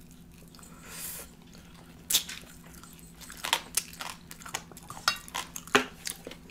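Close-miked eating sounds while eating oven-fried chicken wings: wet mouth clicks, smacks and chewing, busier from about three seconds in, over a faint low hum.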